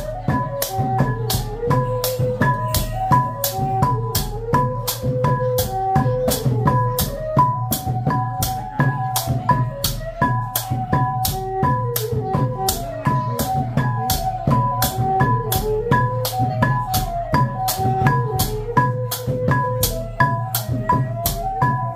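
Khmer chhay yam dance music: a wavering melody line over a steady beat of sharp metallic strikes, about two to three a second, with drums underneath.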